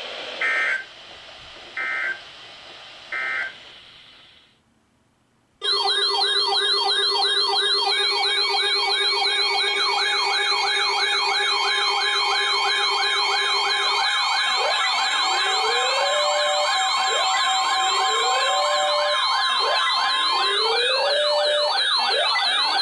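Three short data bursts, the end-of-message code of an EAS/weather radio alert, then after a moment of silence a loud pile-up of electronic sirens starts all at once: fast warbling yelps, steady tones and, later, a rising whoop repeated about every two seconds.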